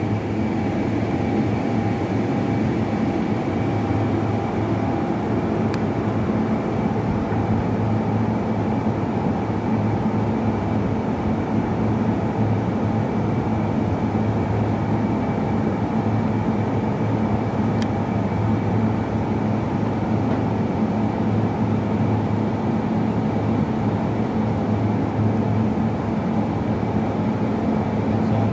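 Steady hum of factory machinery: a constant low drone with a thin high whine over it, holding level throughout, with two faint clicks.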